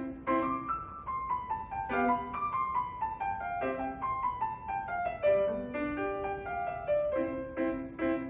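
Acoustic piano playing a lively piece. It opens with a chord struck over and over, moves into a line of single notes stepping mostly downward, and returns to repeated chords near the end.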